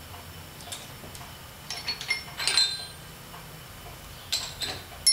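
Steel tooling on a drill press clinking and ringing as the drill chuck is handled: a cluster of sharp metallic clinks about two seconds in and more near the end, over a low steady hum.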